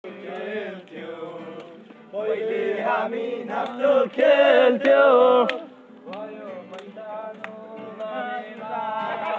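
A group of people singing together, several voices at once with gliding pitches, swelling loudest from about two to five and a half seconds in.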